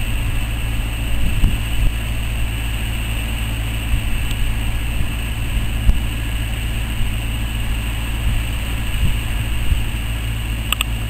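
BR Standard Class 9F steam locomotive 92203 drawing slowly away, heard as a steady low rumble with no distinct exhaust beats. A few faint short pips sound near the end.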